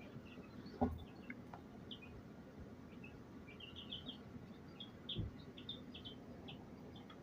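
Baby chicks peeping, many short high chirps in quick scattered runs, with a soft thump about a second in and another around five seconds in.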